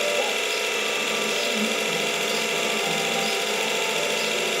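Electric linear actuator running, its gear drive making a loud, steady grinding rattle.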